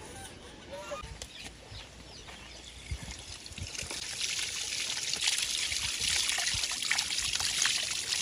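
Water running from the tap of a plastic water tank into a plastic basket of raw chicken intestines. It starts about halfway through and settles into a steady splashing stream.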